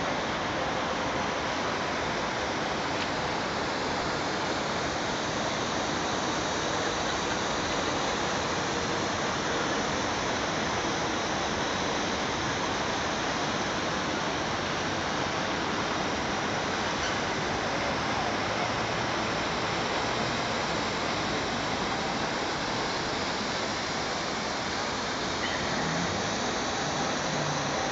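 Steady rushing and splashing of falling water from a large public fountain, unchanging throughout.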